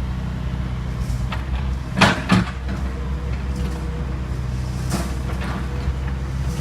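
Kobelco SK75UR excavator's diesel engine running steadily while working, with two loud metallic knocks close together about two seconds in and a lighter one later.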